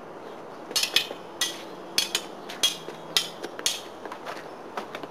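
Thin swords clashing in a duel: a quick, irregular series of about eight to ten sharp metallic clinks, each ringing briefly.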